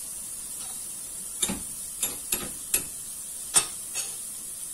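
Tap water running steadily into a stainless steel saucepan in the sink, filling it with water. Several short sharp clicks and knocks come over it in the middle, the loudest about three and a half seconds in.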